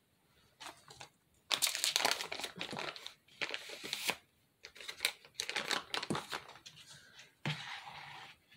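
Plastic piping bag crinkling and rustling as it is handled and loaded with spackle, in several bursts with a short pause about halfway through.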